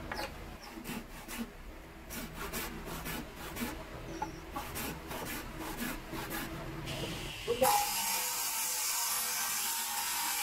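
Wood being worked by hand, with irregular scraping, rubbing and light knocks. Near the end a steady hiss starts suddenly.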